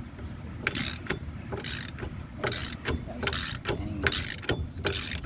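Hand ratchet wrench being worked on a wheel-hub bolt, rattling in short clicking strokes about once or twice a second.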